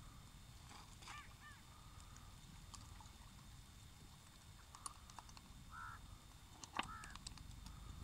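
Near silence: a faint low rumble, with a few faint short calls and occasional light clicks.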